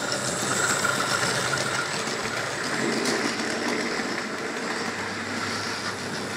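Tri-ang Hymek model diesel locomotive running along the track with its train: a steady whir of the small electric motor and a rattle of the wheels on the rails.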